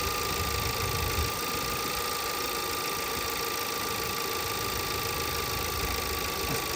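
A 2017 VW Passat's 1.8-litre turbocharged four-cylinder engine idling steadily, with a thin, steady high whine over it. This engine has an intermittent random misfire on all cylinders.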